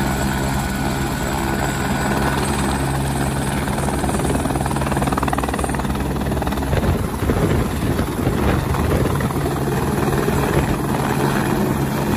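Helicopter running on the pad with its main rotor turning, a steady engine-and-rotor hum. About halfway through, the rotor beat turns rougher and pulses more strongly as the helicopter lifts off.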